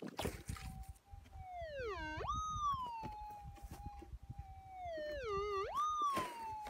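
Minelab GPZ 7000 gold detector's steady threshold hum, broken twice by a strong target response as the coil passes over the dug hole: each time the tone dips low, then sweeps sharply up and settles back to the hum. It is the signal of a gold nugget still in the ground. Short scrapes of dirt sound at the start and near the end.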